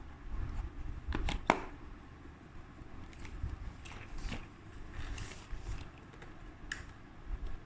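Small objects being handled by hand: a few light clicks and knocks, with one sharp click about one and a half seconds in, and brief rustles.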